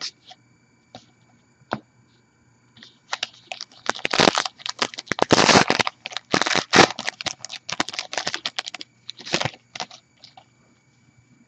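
A trading-card pack wrapper being torn open and crinkled: a dense run of crackling from about three seconds in until near the end, after a few light clicks of cards being handled.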